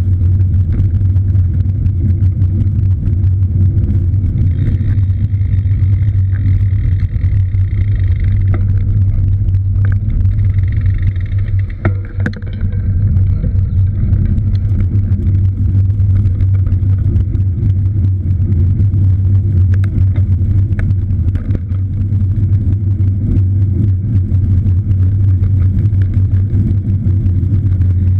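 Steady low rumble from riding a cross bike, with wind and road noise on the microphone.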